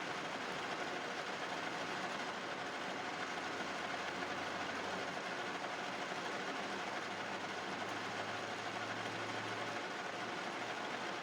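Metal lathe running steadily while machining a pulley, an even noise over a faint low motor hum that rises slightly in pitch about halfway through.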